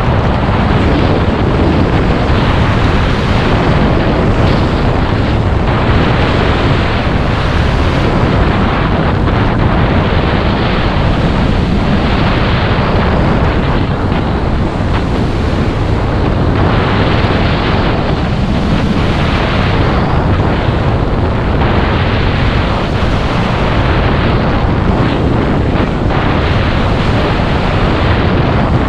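Wind rushing over a skier's camera microphone at speed, mixed with skis running over snow. The hiss swells and eases every few seconds.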